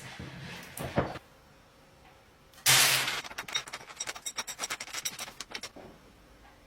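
A sudden rush of noise followed by about three seconds of rapid, uneven clicking and rattling, as of small hard parts being handled or shaken.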